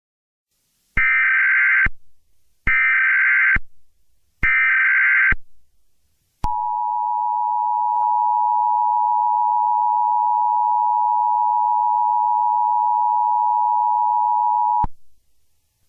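Emergency Alert System broadcast signal. Three short, screechy digital data bursts of the SAME header, then the long steady two-tone attention signal (853 and 960 Hz) held for about eight seconds before it cuts off, announcing an incoming alert.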